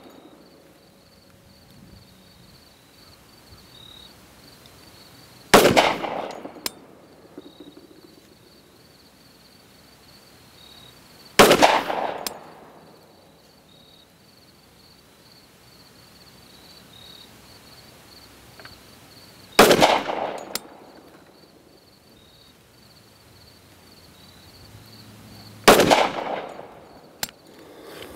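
Four single shots from a Glock 40 Gen4 MOS pistol in 10mm Auto, fired slowly several seconds apart. Each sharp report trails off in an echo.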